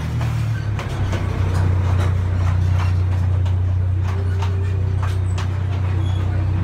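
Zoo Line Railroad train running through a corrugated metal tunnel, heard from an open passenger car: a steady low rumble with irregular clicks and rattles from the wheels and cars.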